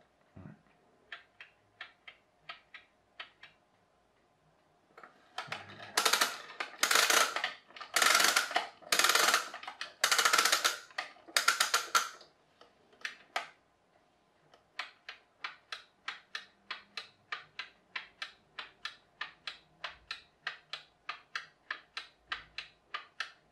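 Plastic wind-up clock kit: a few faint clicks, then loud bursts of ratchet clicking about once a second, as the spring is wound. From about fifteen seconds in, the clock's escapement ticks steadily at about three ticks a second, showing the movement is running.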